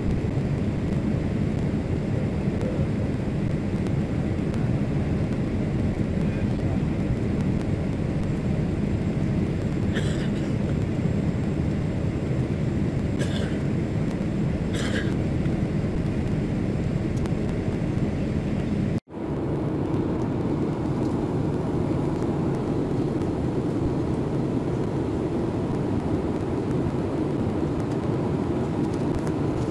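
Steady in-flight cabin noise of a Boeing 787: the even rush of engines and airflow heard from a window seat. It drops out for an instant about two-thirds of the way through, then carries on unchanged.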